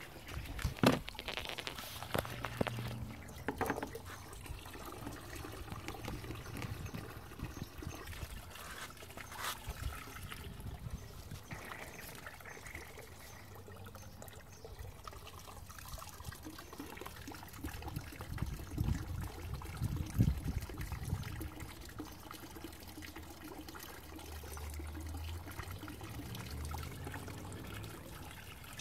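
Water pouring and splashing from a homemade water ram pump into a barrel, with irregular knocks and clunks as the pump's valve fittings are worked by hand. The knocks come at uneven times rather than the steady beat of a ram pump cycling by itself: the pump will not keep going on its own.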